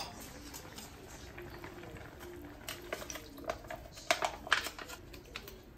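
Coconut milk pack being handled and squeezed into a pan of simmering curry: scattered light clicks and crinkles, the loudest cluster about four seconds in.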